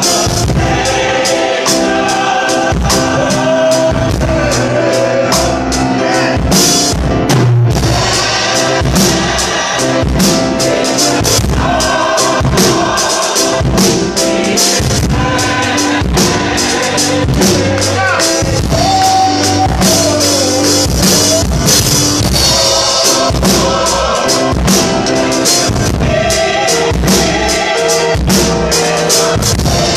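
Church gospel choir singing in full voice, accompanied by piano and a drum kit keeping a steady beat.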